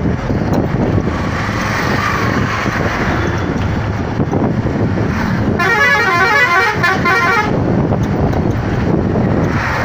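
Steady road and wind noise from a moving road vehicle. A bit past halfway a vehicle horn sounds for about two seconds with a fast warbling, alternating tone.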